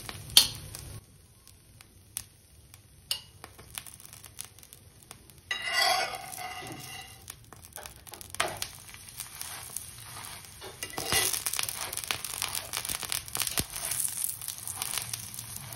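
Oil sizzling and crackling under a thalipeeth on a hot cast-iron tawa, with a flat metal spatula scraping and clicking against the pan. A scrape about six seconds in as the spatula goes under the flatbread, then a louder, busier sizzle once it is turned over and pressed onto the oiled tawa.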